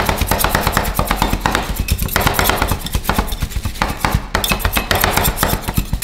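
Metal ice-cream spatulas chopping and scraping on a frozen steel cold plate, cutting chocolate bar pieces into the vanilla ice-cream base: a rapid, steady clatter of sharp metal strikes, several a second.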